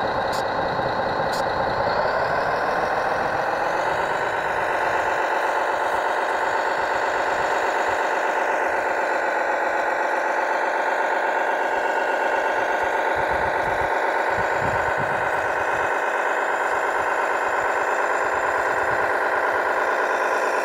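Radio-controlled model truck running with a steady mechanical hum, stepping up slightly in pitch in the first few seconds, then holding level.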